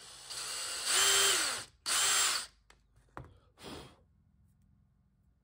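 DeWalt 20V cordless drill drilling a small hole through a thin Lexan polycarbonate tail piece. The motor whines, spins up hard twice in short bursts with the pitch rising and falling, then gives a click and one brief last spin.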